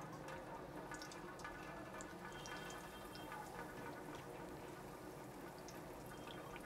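Breadcrumb-coated chicken and potato cutlets shallow-frying in hot oil in a pan: a faint sizzle with scattered small pops and crackles.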